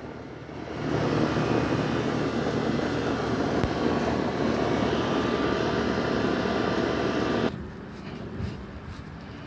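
Outdoor air-conditioner condenser unit running: a steady fan whir with a low hum, which drops away abruptly about seven and a half seconds in.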